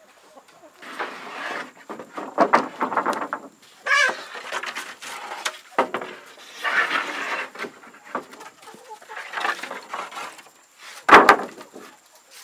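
Domestic chickens clucking in short bouts, with two sharp knocks about eleven seconds in.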